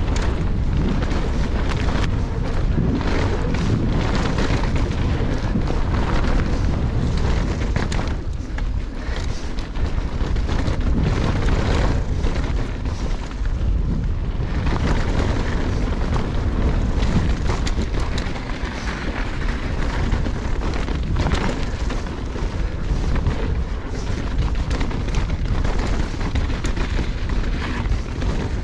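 Wind rushing over the microphone as a mountain bike descends a dirt singletrack, with a steady low rumble of tyres on the rough trail and frequent short clicks and rattles from the bike bouncing over bumps.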